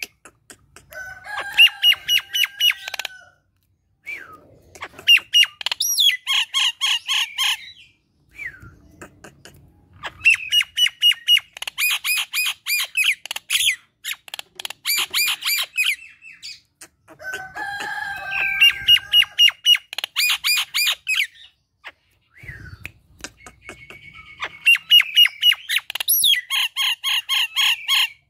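Common myna (jalak nias) singing: repeated bouts of fast, rattling notes, each a few seconds long, separated by short pauses and odd single calls.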